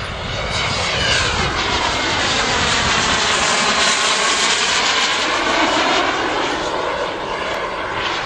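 Radio-controlled model Eurofighter jet flying close overhead at full power: a loud, high rushing jet sound that swells about a second in, holds strongest through the middle as the model passes, and eases slightly near the end.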